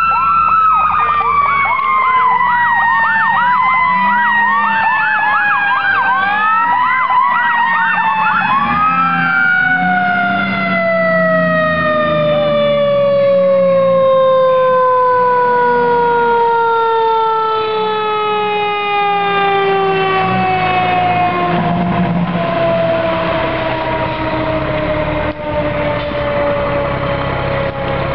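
Fire engine's mechanical siren winding down in one long, slowly falling wail, spun up again briefly twice in the first seven seconds, with a second, electronic siren warbling quickly over it for about the first ten seconds. The truck's engine runs underneath as it pulls in.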